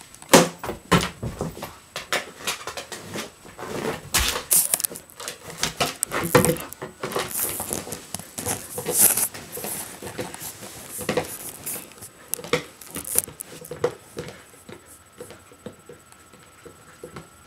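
A dog playing with a plastic frisbee: a string of irregular knocks, clatters and scuffles, dense at first and thinning out near the end.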